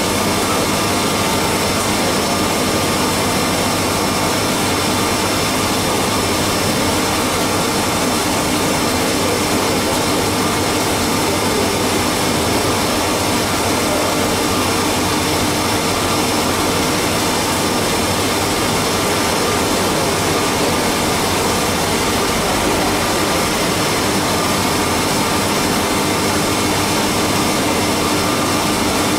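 Haas CNC milling machine running steadily while milling a cam on a fourth-axis dividing head: a constant, even machine noise with several steady whining tones and no change in level.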